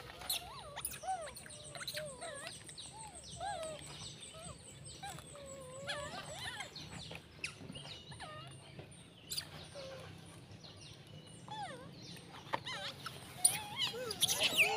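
Long-tailed macaques giving many short squeaky coos and chirps that bend up and down in pitch, scattered through the whole time and busiest and loudest near the end. A high, thin ticking runs behind them for much of the time.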